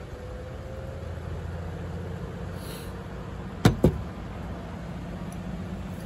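Two quick, sharp clinks a little past halfway, from a white ceramic pour-over dripper being set down on a hard surface after brewing, over a steady low rumble.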